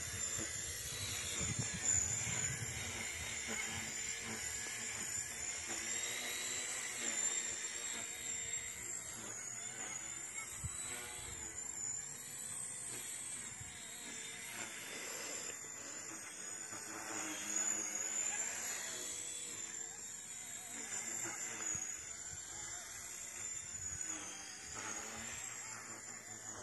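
WLtoys V911S micro RC helicopter's electric motor and rotor whining: it winds up in pitch at the start, then holds a high, slightly wavering whine as the helicopter flies.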